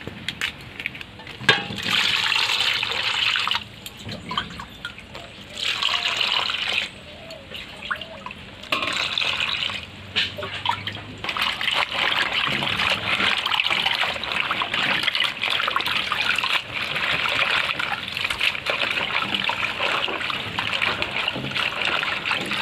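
Water splashing and sloshing in an aluminium basin as cauliflower leaves are swished and rubbed by hand to wash them. It comes in bouts with short pauses at first, then goes on almost without a break for the second half.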